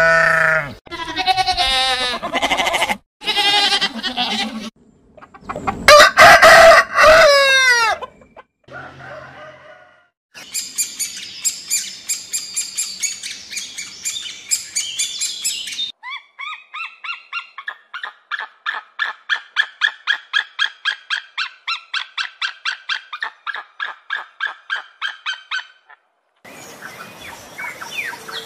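A run of animal calls: sheep bleating several times, the loudest call about six seconds in, then a bird chattering and a long series of quick repeated bird calls, about four a second. Near the end comes a hissing noise.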